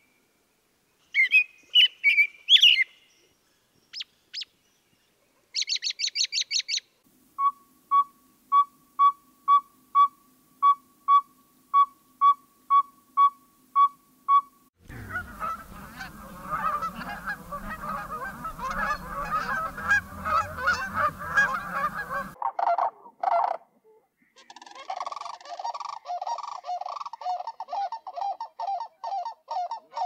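A run of bird calls. First an American robin sings its warbled 'cheerily, cheer up' phrases and then a quick high whinny. Next comes a steady series of about fifteen even toots, about two a second, from an unnamed bird. Then a flock of Canada geese honks for several seconds, and near the end sandhill cranes give their rattling bugle.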